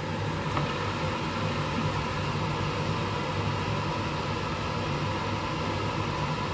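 Steady hum and hiss of a running fan, with one faint click about half a second in.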